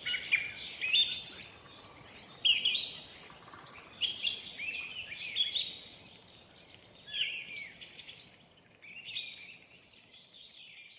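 Birdsong: several birds chirping and singing in quick, overlapping phrases of short sliding notes, over a faint steady background hiss.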